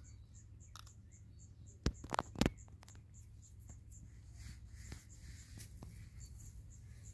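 Tabby kitten eating a mouse, with a few sharp crunches about two seconds in as it chews. A cricket chirps steadily behind, about three or four chirps a second.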